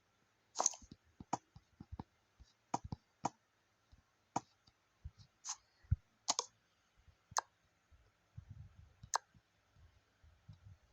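About a dozen sharp clicks and taps of small hard objects being handled, spaced unevenly, with soft low rustling in the last few seconds.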